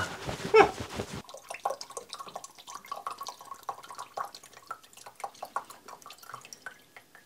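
Kerosene flushing fluid dripping and trickling out of a mountain-bike suspension fork's lower leg into a glass, in small irregular drips, as the leg is drained to flush out dirt and metal shavings.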